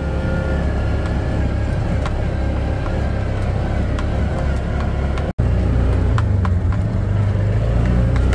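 Side-by-side UTV engine running steadily while driving, heard from inside the cab. The sound cuts out for an instant about five seconds in and resumes a little louder.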